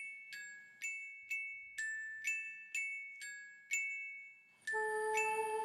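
Background music: a high, bell-like melody of struck, ringing notes about two a second, joined near the end by a fuller layer of held lower notes.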